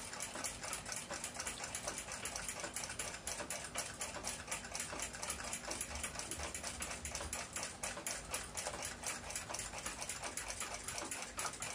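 Rapid, steady ticking of a clock, several even ticks a second.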